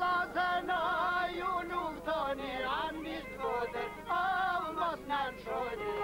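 Male voice singing an Albanian folk song in a wavering, heavily ornamented style, with a steady held instrumental tone underneath.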